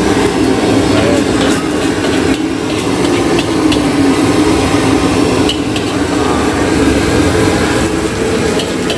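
Gas wok burner running steadily under frying rice, with a metal spatula scraping and clanking against the steel wok now and then as nasi goreng with egg is stirred.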